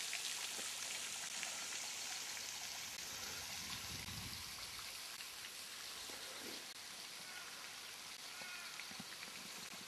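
Steady, faint hiss that slowly fades, with a few faint bird chirps in the second half.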